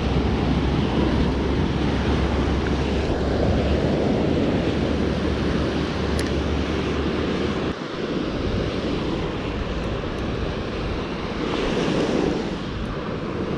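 Surf washing on a beach, with wind rumbling on the microphone; the low rumble drops away about eight seconds in.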